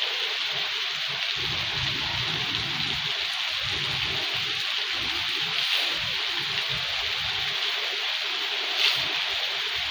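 Heavy rain pouring steadily on trees and the ground: an even rushing hiss with an uneven low rumble underneath, and a brief sharper splat near the end.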